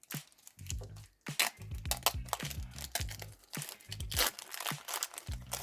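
Hockey card pack wrapper crinkling and tearing in irregular scrunches as it is opened by hand, over background music with a repeating bass line.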